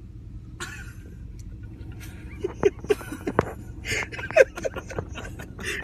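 Steady low rumble of a car, heard from inside the cabin, with a few sharp knocks and rustling in the middle.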